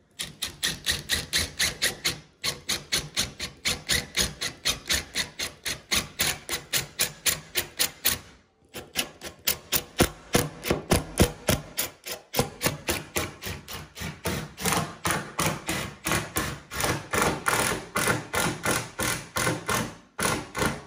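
Cordless drill boring a spade bit down through a kitchen worktop, the bit chattering in a rapid, even knocking of about five knocks a second, with a few brief pauses as the drilling stops and restarts.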